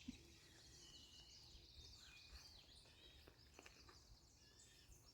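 Faint song of a warbling vireo: a run of short, slurred high notes rising and falling, over a low steady outdoor background.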